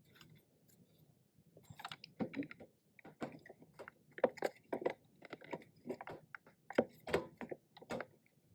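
Irregular small clicks and taps of 3D-printed plastic parts being handled and fitted together, starting about two seconds in.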